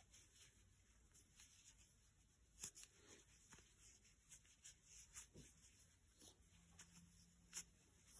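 Near silence, with faint, irregular soft ticks and rubbing from a 12 mm plastic crochet hook pulling chunky t-shirt yarn through loops while single crochets are worked.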